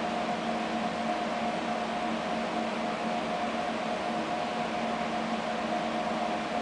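Steady machinery and ventilation hum over an even hiss, with several steady droning tones: the background of a ship's engine control room.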